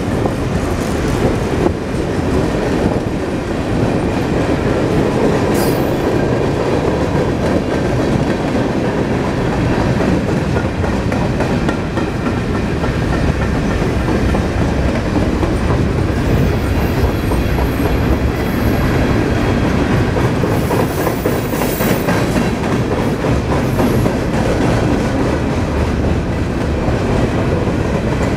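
Freight cars of a long manifest train rolling past at steady speed: a continuous rumble with wheels clacking over rail joints. A few brief high-pitched wheel squeals come through now and then.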